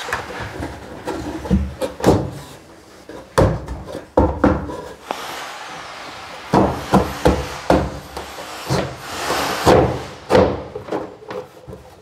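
An OSB patress board being pushed and knocked into place by hand between timber studs: a run of irregular wooden knocks and thuds, with scraping as the board slides against the framing.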